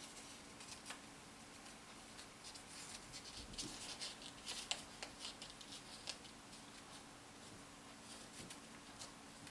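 Faint rustling and crinkling of a paper sheet being folded by hand, in scattered soft crackles that are busiest a few seconds in.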